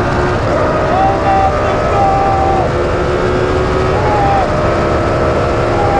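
Prost Formula 1 car's V10 engine running under heavy wind and road noise, its pitch holding steady and dipping briefly a few times.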